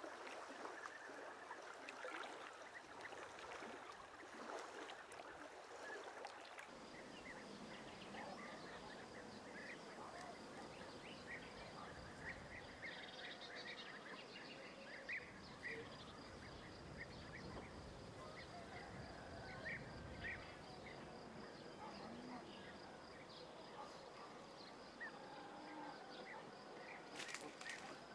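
Water splashing and sloshing as a person wades through a shallow river. About seven seconds in it changes abruptly to a quiet riverbank ambience: scattered small-bird chirps over a steady high insect drone.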